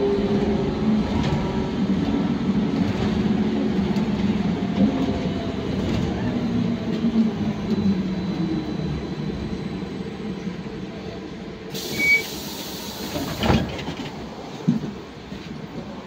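Trolza-5275.07 Optima trolleybus running, heard inside the passenger cabin: its electric drive whine sinks slowly in pitch and grows quieter as the trolleybus slows. About twelve seconds in comes a burst of hissing air with a short beep, then a single knock.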